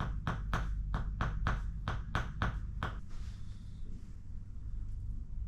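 Tok Sen treatment: a wooden mallet striking a wooden peg held against a patient's body, making a rhythmic tapping of about four strikes a second that stops about three seconds in.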